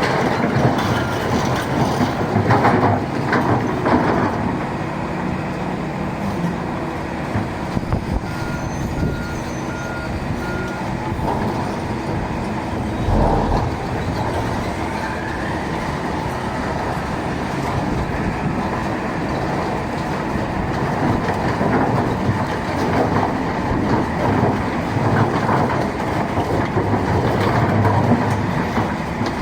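Heavy machinery running steadily at a rock-crushing job: a Volvo excavator's diesel engine and a mobile stone crusher, with a continuous rumble and rattle and a few heavier knocks of rock.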